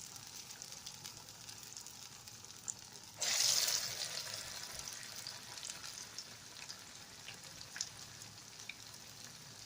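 Ta'meya (falafel) patties frying in a pan of oil: a steady faint sizzle with scattered small pops, and a sudden loud burst of sizzling about three seconds in that dies down over a second or so, as another patty goes into the oil.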